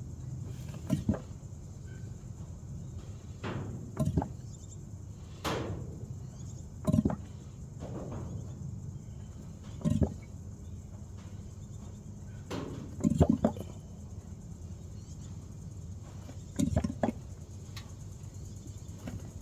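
Workshop tool work on a motorcycle gearbox: scattered short knocks and clinks of tools and parts, about a dozen spread unevenly, over a low steady hum.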